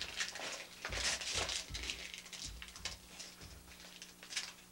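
Wrapping paper crinkling and tearing in irregular bursts as a toddler unwraps a heavy gift.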